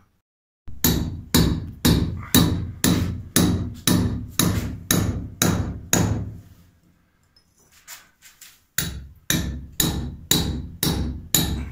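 Hand hammer striking a steel chisel set against a wall: steady blows about two a second, a run of about a dozen, a pause of a couple of seconds with a few light taps, then six more blows.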